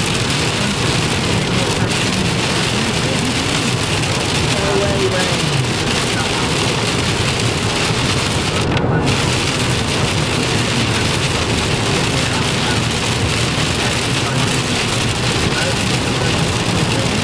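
Torrential rain beating on a car's windscreen and body at motorway speed, heard inside the cabin over tyre and road noise. The high rain hiss drops out briefly about nine seconds in as the car passes under a bridge.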